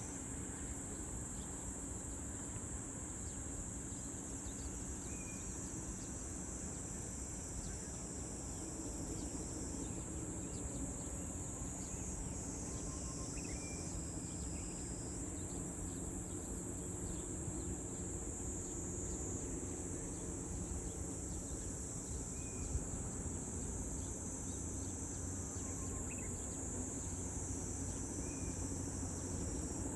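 A chorus of insects, crickets or similar, giving a steady high shrill that stays level throughout, with its pitch stepping slightly a few times. A low steady rumble lies underneath.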